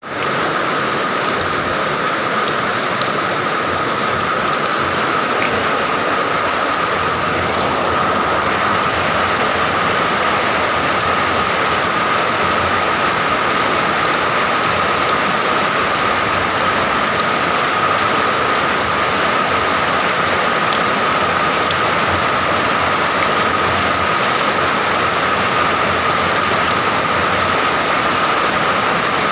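Steady rain, an even hiss of drops with many small ticks of individual drops hitting.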